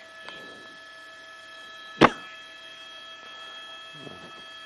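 A steady electrical hum with a thin high whine, and one sharp click about two seconds in.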